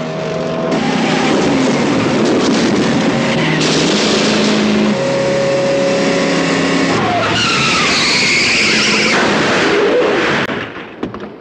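Car chase: a Buick LeSabre and a Chevrolet Impala running hard with engines at high revs and tyre noise, with a long screech of skidding tyres about seven seconds in. The sound falls away sharply near the end.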